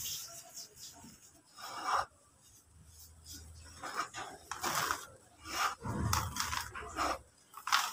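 Dry, dusty yellow brick dirt crumbling and rustling under hands as they dig into and crush it. It comes in irregular scraping bursts: one about two seconds in, a short lull, then a busier run over the second half.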